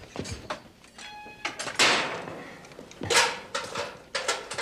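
A barred jail cell door squeals briefly, then clangs shut with a loud ringing clank, followed by further knocks and clicks of metal.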